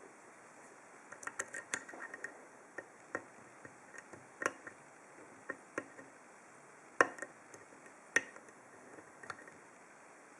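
Lock-picking hook and tension wrench working the pin tumblers of an American Lock 1200-series padlock: scattered light metallic clicks and taps, with a few louder clicks, as pins are raised and set.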